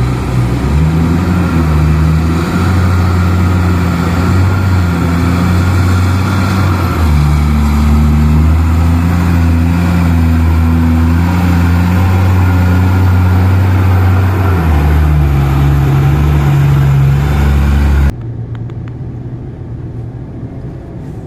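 Heavy mining machine's diesel engine running loud under changing load, its low hum stepping up and down in pitch every few seconds. About 18 s in it cuts off sharply to a quieter, duller engine sound.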